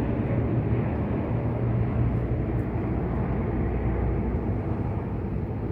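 Airbus A380 jet airliner flying past, its four turbofan engines making a steady, even rumble.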